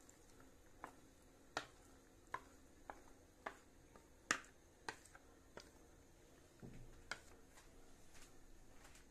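Cooked pasta being tipped from a plastic colander into a pot, a wooden spoon pushing it out: about nine sharp, irregular knocks and taps as spoon and colander strike the pot, the loudest a little past four seconds in.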